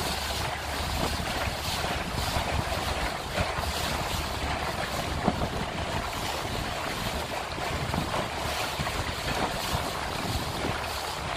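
Steady wind buffeting the microphone over choppy river water splashing against a small boat, with a brief knock about five seconds in.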